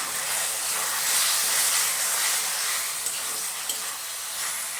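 Onion-tomato masala with salt and turmeric sizzling in hot oil in a pan as it is fried, a steady hiss that swells just after the start, with a couple of light ticks in the second half.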